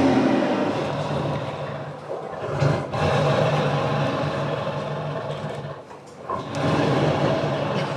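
Zombie tiger sound effect: drawn-out, rough growling roars in three long stretches, with brief breaks about two and a half and six seconds in.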